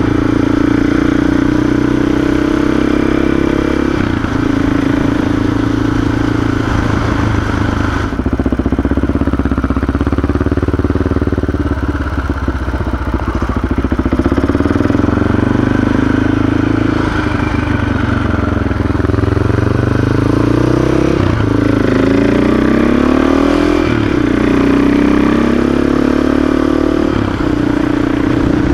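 CCM 604 E supermoto's single-cylinder engine running on the move, its pitch sagging as the bike slows about a third of the way in, then climbing in several rising pulls through the gears later on, over steady wind rush at the rider's helmet.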